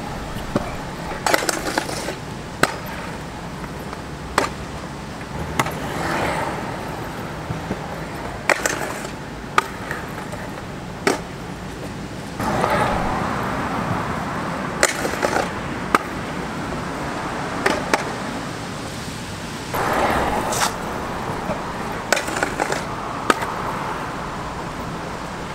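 A stunt scooter's wheels rolling on concrete pavement, broken by many sharp clacks and knocks as the scooter lands and hits a concrete ledge during repeated trick attempts.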